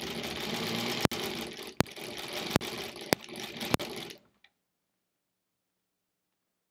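1938 Kenmore model 38 sewing machine running as it stitches a seam, with a sharp click every half second or so. It stops about four seconds in.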